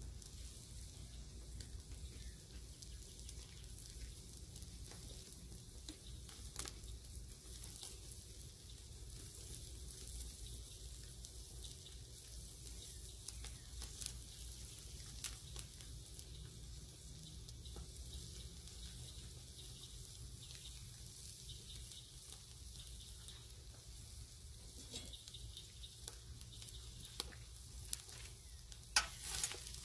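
Whole mullet sizzling on a grill grate over open flames: a steady hiss with scattered pops and crackles, a few louder pops near the end.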